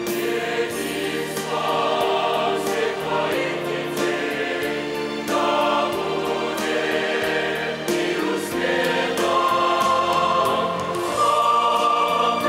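Mixed church choir of men and women singing a hymn in held, sustained chords.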